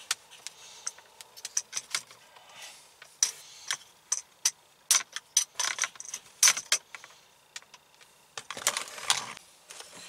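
Small metal flathead and pick tool clicking and scraping against the plastic retaining tabs of a 2009 Pontiac G8's power window switch as it is pried loose from the console trim plate. Many sharp, irregular clicks, with longer scraping rustles around the middle and again near the end.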